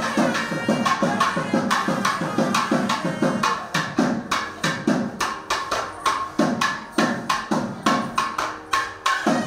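Fast, steady drumming with sharp hand-struck strokes several times a second, over a faint held tone.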